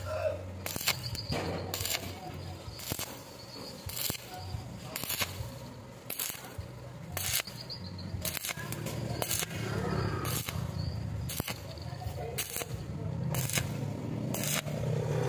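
Stick-welding arc on a steel tube, crackling and popping with irregular sharp pops about once or twice a second over a steady low hum. The title presents this sputtering arc as the result of a weak, unstable power supply.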